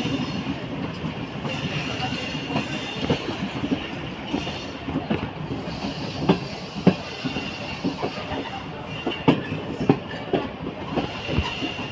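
Passenger train carriage running along the track: a steady rumble broken by irregular clacks and knocks of the wheels over rail joints.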